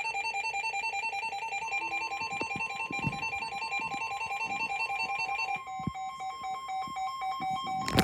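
Emergency Alert System attention tones. A rapidly alternating two-pitch alarm tone is joined by a steady higher tone about two seconds in. About five and a half seconds in, the alternating tone gives way to steady tones, with a sharp click near the end.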